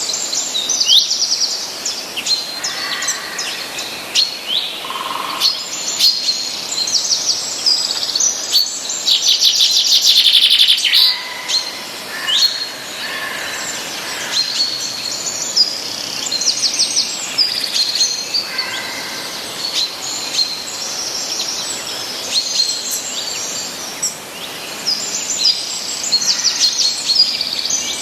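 Several small songbirds chirping and trilling, with many quick high notes and rapid trills overlapping, over a faint steady hiss.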